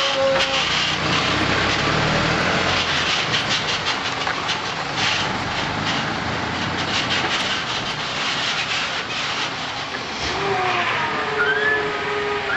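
Garbage truck driving slowly off, its diesel engine running under a steady rumble with a run of clicks and rattles over it. A few short pitched sounds come in near the end.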